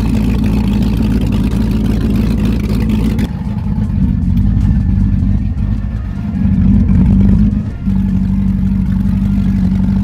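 Boat's LS-swapped 5.3-litre V8 (an iron-block Silverado truck engine) running steadily, its exhaust churning the water at the stern. It gets louder for about a second and a half around seven seconds in, then drops back to a steady run.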